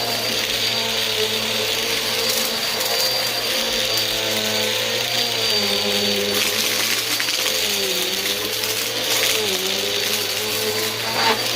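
Bissell vacuum cleaner running steadily, with a constant high whine over the motor hum. The motor's pitch sags briefly several times, and there is a short knock near the end.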